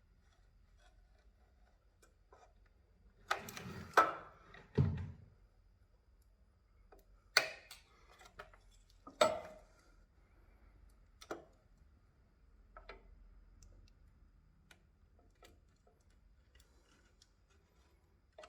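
Scattered clicks and knocks of hand work on the plastic cover of an electric unicycle's motor-cable box, as the silicone sealant along its edge is cut with a precision knife. The loudest are a cluster of knocks about four seconds in and two sharp clicks a little later.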